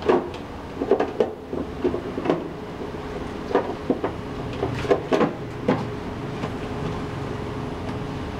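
Plastic front cover of a Legend instant electric water heater being pushed down and snapped onto its wall-mounted base: a run of irregular clicks and knocks, about ten in the first six seconds, then fewer.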